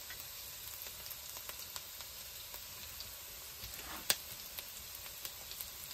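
Peanuts, diced boiled potato and onion frying in oil in a stainless steel pan, a steady sizzle with scattered faint pops. One sharper click comes about four seconds in.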